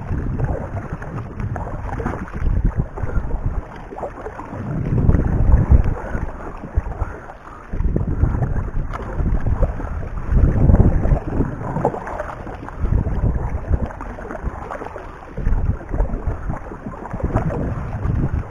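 Wind buffeting the microphone in uneven gusts, over the water sounds of a double-bladed kayak paddle dipping and pulling through the water.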